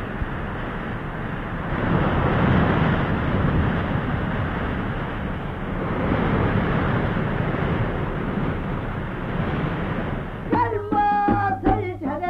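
A loud, steady rushing noise that swells and eases. About ten and a half seconds in, a female shaman starts singing a ritual song into a microphone over sharp drum strokes.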